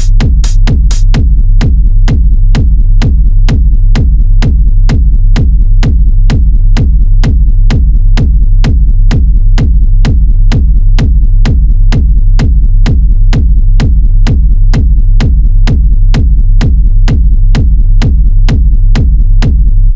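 Minimal techno track: a steady beat of about two kick hits a second over a heavy pulsing bass line. A denser layer of bright, hissy hits drops out about a second in.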